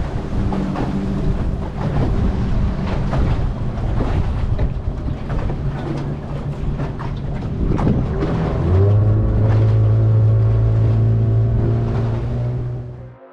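Boat engine running steadily under rushing wind and water noise. About nine seconds in the engine note shifts and settles into a stronger, steadier hum, then the sound cuts off suddenly near the end.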